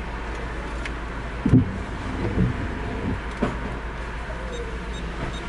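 Car engine idling, heard from inside the cabin as a steady low hum, with a sharp thump about a second and a half in and a few softer knocks after it.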